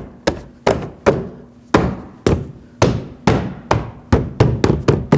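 Lexus IS250 front door trim panel being tapped into the door, a rapid, uneven series of about a dozen sharp knocks as its plastic push clips are seated and snap into place.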